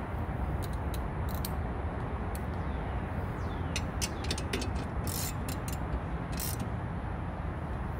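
Scattered clicks and taps of hands and tools working at the blade mounting under a tipped-up lawn mower deck, in a cluster about halfway through, over a steady low rumble.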